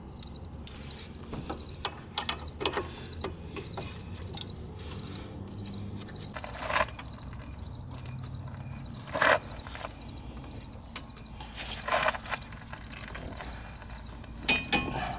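3/8-inch drive ratchet with a 15 mm socket tightening a front brake caliper bolt: ratchet clicking on the back swings, with a few sharp metal clicks and knocks. A steady high chirp repeats about three times a second underneath.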